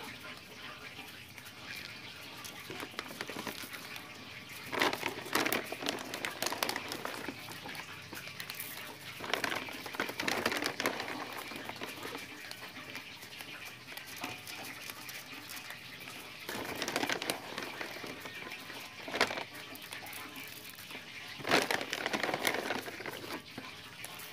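Several house cats eating cat food: irregular small eating noises with louder bursts a handful of times.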